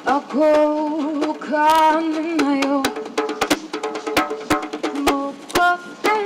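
A woman singing a melody in long, wavering held notes, accompanying herself with sharp drum strokes.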